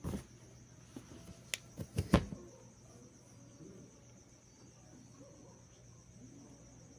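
Steady high-pitched insect chirring, like crickets, in the background, with a handful of sharp clicks and taps in the first couple of seconds, the loudest just after two seconds in.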